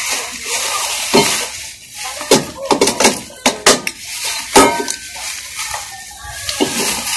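Clear plastic wrap crinkling and rustling as it is handled over a new tabletop gas stove, with a run of sharp clicks and knocks against the stove between about two and five seconds in.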